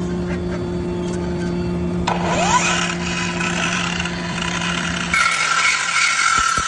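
Dekton 21V cordless brushless miter saw running with a steady low hum. About two seconds in, a short rising whine and a harsher noise come in. About five seconds in the low hum stops, leaving higher-pitched ringing tones.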